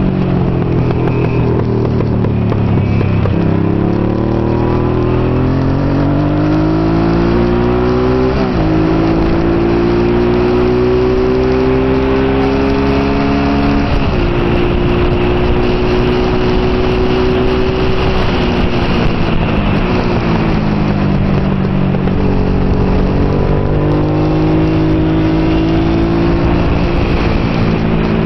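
Honda NT650 Hawk GT's V-twin engine under race load, revving up through the gears with two quick upshifts, about a third and halfway through. It then holds a steady note before the revs fall as it slows, and climbs again near the end.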